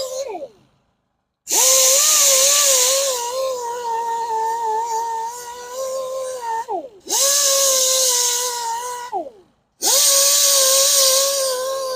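Electric grinder with an aggressive grinding disc taking deep curb rash off a machined-face alloy wheel: a loud, high whine with harsh hiss as the disc bites. It is switched off and started again three times, its pitch falling each time it winds down.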